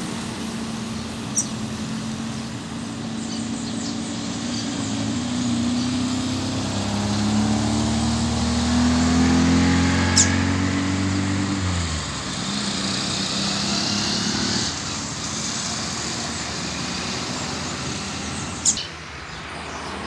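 A motor vehicle passing on the nearby road: its engine hum builds, is loudest about ten seconds in, and falls away quickly soon after. Three short, sharp high chirps stand out, one near the start, one midway and one near the end.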